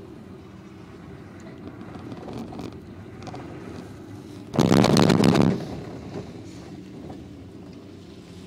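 Four-seat POMA gondola passing over a support tower: the cabin's grip and haul rope run across the tower's sheave rollers with a loud, rapid clatter lasting about a second, a little past halfway through. A steady low hum from the moving cabin and rope runs beneath it.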